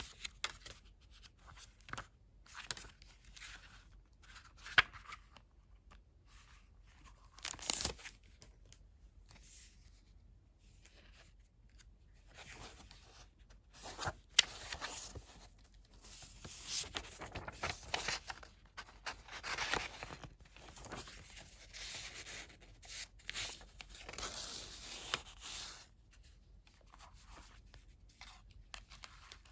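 Hands handling Traveler's Notebook paper inserts and a leather notebook cover: pages turning and paper rustling in irregular bursts, with a few sharp taps, the sharpest about five seconds in and again about fourteen seconds in.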